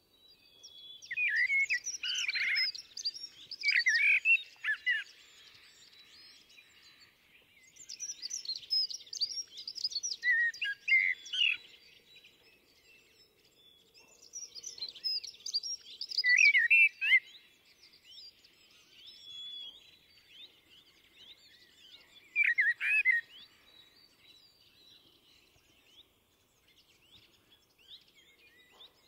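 Common blackbird singing: four warbled song phrases several seconds apart, each a run of lower whistled notes mixed with higher twittering, with faint twittering between the phrases.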